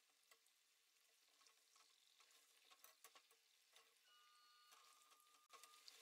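Very faint sizzling with scattered small crackles from pastry dumplings deep-frying in hot oil.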